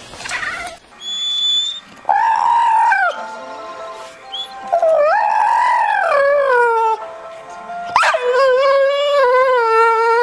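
A pet animal howling in three long, wavering calls, each held for one to three seconds and sliding down in pitch at its end, the last the longest.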